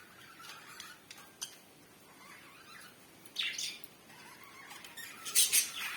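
African lovebirds chirping and squawking: quiet twittering, one loud squawk about halfway through, and a few loud sharp calls near the end.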